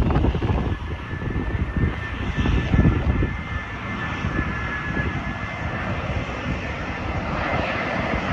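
Jet airliner on final approach, its engines giving a steady high whine over a low rumble.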